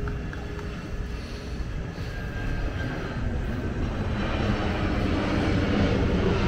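Kawasaki C-2 military transport jet flying low overhead in a flyover, its engine rumble growing louder from about four seconds in as it approaches.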